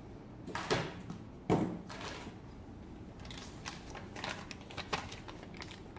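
Handling sounds of plastic toy parts and packaging: a few light, separate knocks and clicks, the loudest about a second and a half in.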